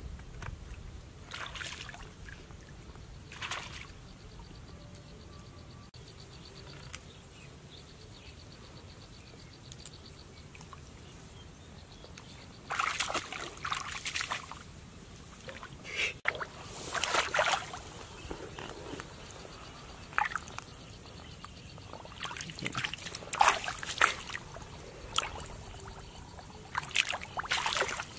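Hands and bare feet splashing and squelching in shallow muddy water, in irregular bursts that come more often and louder in the second half.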